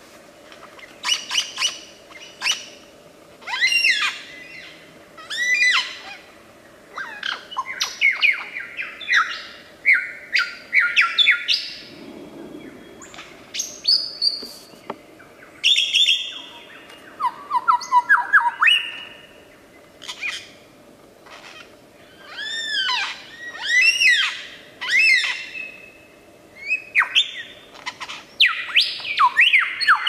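A lyrebird singing a long, varied medley of loud whistles, chirps and squawking calls in short phrases, ending in a fast run of repeated falling notes. Much of a lyrebird's song is mimicry of other birds' calls.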